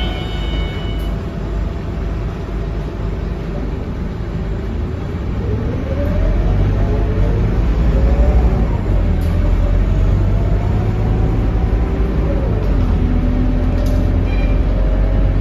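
Scania K230UB bus's nine-litre five-cylinder diesel heard from inside the saloon, running low and steady, then pulling away about five seconds in: the engine note rises, eases off at a gear change, rises again and drops back about three seconds before the end.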